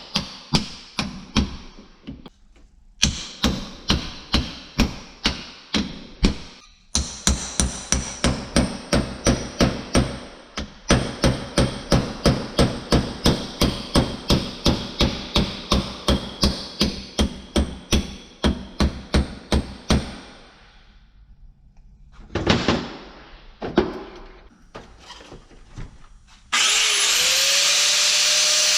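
Hammer strikes in a fast steady rhythm, about three a second, with a few short pauses, knocking apart a worn constant-velocity PTO joint. A few scattered knocks follow. Near the end a power tool starts up with a rising whine and runs steadily.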